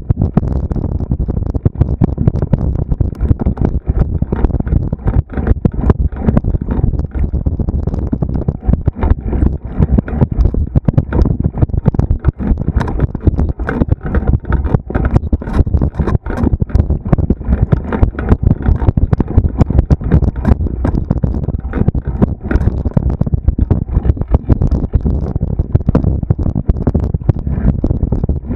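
Fast travel along a rough cross-country trail: a heavy low rumble with dense, irregular knocks and rattles, and wind buffeting the microphone.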